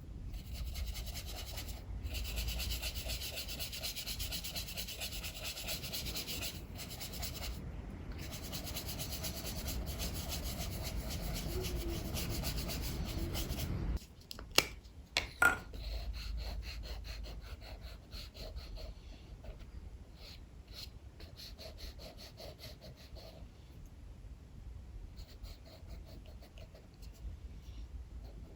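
Sketching strokes scratching on paper over a strong low wind rumble. The rumble and the louder rubbing cut off suddenly about halfway, two sharp clicks follow about a second apart, and then quieter short strokes go on.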